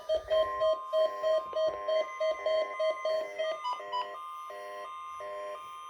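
Several weather radio receivers alarming at once for a required weekly test: overlapping electronic beeping patterns, about three beeps a second, with the steady weather radio warning alarm tone coming in just after the start. One beep pattern stops about three and a half seconds in while another keeps pulsing under the tone.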